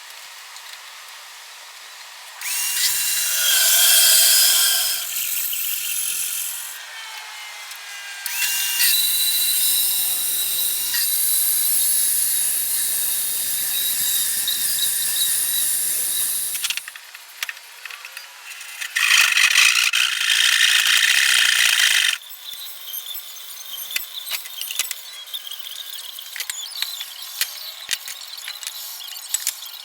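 Power tools working wood in three runs, the second the longest, each starting and stopping abruptly, followed by lighter scattered clicks and taps.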